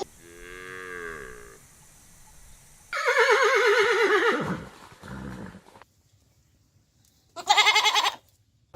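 Goats bleating in separate calls: a faint one at the start, a loud quavering bleat a few seconds in, and another short loud bleat near the end.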